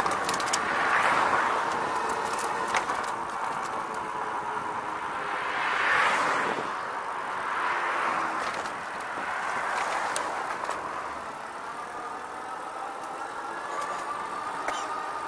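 Cars going by on the road alongside, several swelling and fading in turn. Under them runs the steady sound of the moving RadRover e-bike, with a faint whine that rises slightly near the end.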